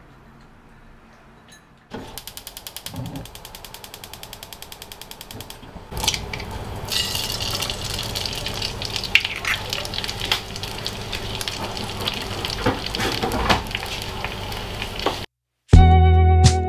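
Gas hob igniter ticking rapidly for about four seconds, then an egg going into a hot oiled frying pan and frying with a steady sizzle and crackle. Music cuts in just before the end.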